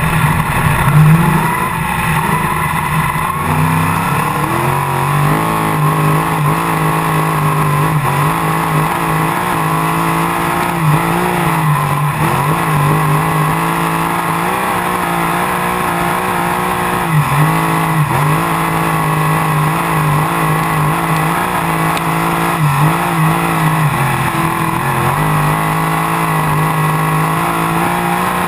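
Winged sprint car's engine running hard on a dirt oval, recorded on board. The pitch climbs over the first few seconds, then holds steady with brief dips every few seconds as the throttle is lifted for the turns.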